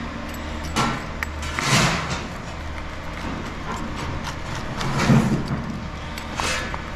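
Coal being shovelled into a steam locomotive's firebox: several gritty scrapes and rattles of the scoop and coal, the loudest about two and five seconds in, over a steady low hum.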